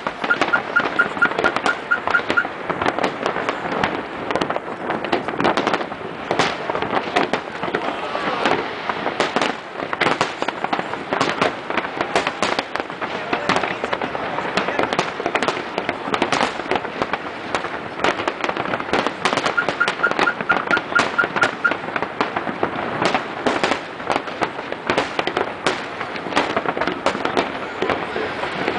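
Fireworks display: a continuous, dense barrage of aerial shell bursts, bangs overlapping with crackling, with no let-up.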